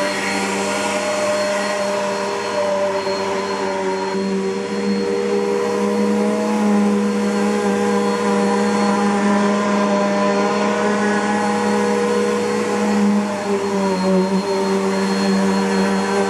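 Bissell PowerForce bagged upright vacuum cleaner running with a steady motor whine and airflow hiss. The pitch and loudness shift slightly about four seconds in and again briefly near the end.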